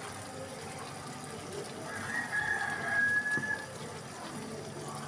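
Faint kitchen noise from a pot of risotto being tended on the stove. About two seconds in, a single high, steady tone sounds for about a second and a half, falling slightly in pitch.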